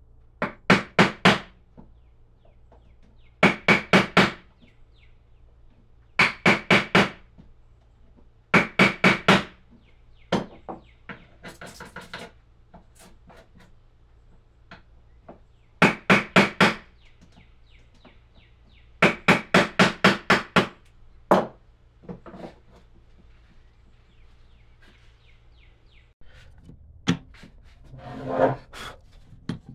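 Hammer tapping on wood in quick bursts of four to six sharp taps, each burst a few seconds apart, then a few single knocks and a short stretch of rubbing or scraping near the end.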